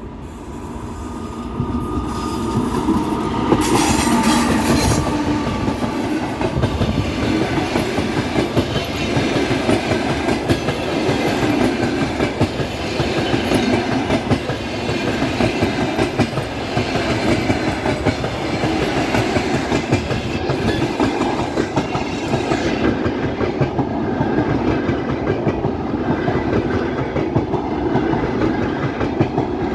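A passenger train hauled by an EP2K electric locomotive passing close by. The sound builds over the first couple of seconds, then holds as a steady rumble with the clickety-clack of wheels over rail joints.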